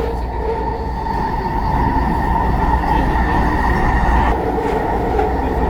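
SkyTrain car running at speed, heard from inside: a steady low rumble with a constant whine over it.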